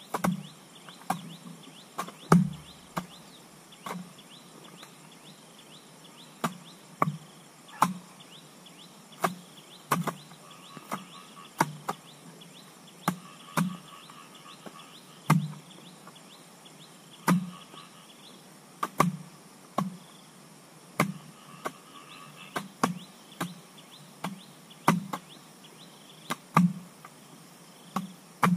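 Repeated blows of a hand tool, a sharp knock with a dull thud roughly once a second at an uneven, unhurried pace, as in chopping or digging by hand.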